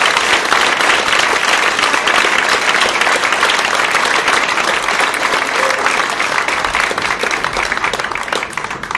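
Audience applauding steadily, thinning into scattered separate claps and fading near the end.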